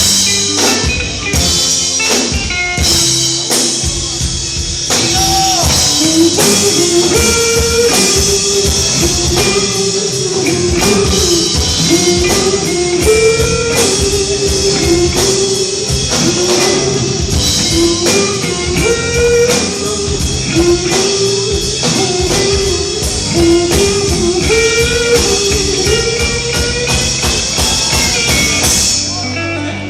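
Live rock band playing an instrumental break: drum kit and electric guitar, with a lead guitar line winding through it.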